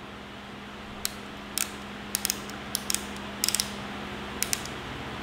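Outside micrometer's ratchet thimble clicking as it is closed onto a piston skirt to measure its diameter: sharp, light clicks in irregular small groups, starting about a second in, over a steady low hum.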